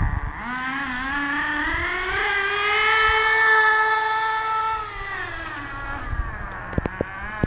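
Small two-stroke engine of a homemade RC gas rail drag car revving up as the car accelerates away: the pitch climbs over about three seconds, holds high, then drops as the engine comes off. A few sharp clicks near the end.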